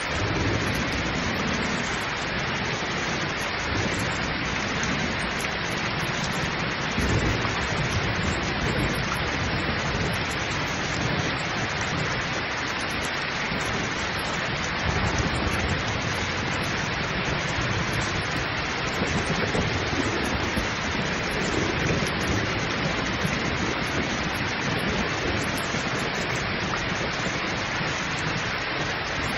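Heavy rain pouring steadily, with low rumbles of thunder swelling up several times beneath it.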